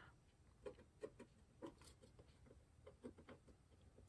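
Faint, irregular little ticks and scratches of fingernails picking at leftover sticker residue on a tinplate chocolate tin.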